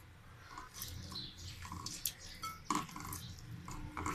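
Boiled cauliflower being mashed and squeezed by hand in a ceramic bowl: irregular soft, wet squishing strokes.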